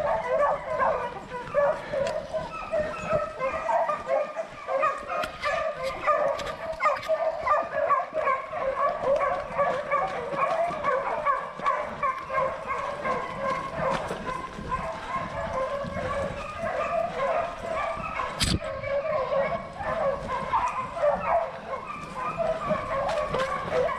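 A pack of beagles baying in chorus on wild boar, many voices yelping and giving tongue over one another without a break. One sharp knock sounds about 18 seconds in.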